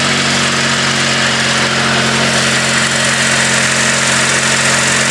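Small garden tractor engine running steadily at an even pitch.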